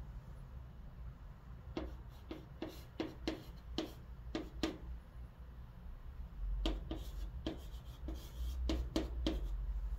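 Chalk writing on a chalkboard: a string of short taps and scratches as letters are stroked on, with a longer scratching stroke near the end, over a steady low hum.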